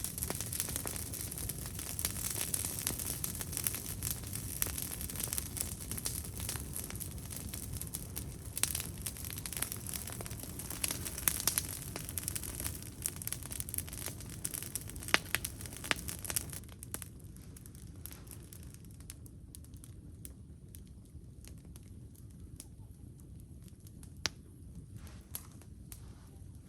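Wood campfire crackling, with a dense run of sharp pops and snaps that thins out about two-thirds of the way through to a quieter crackle with occasional pops.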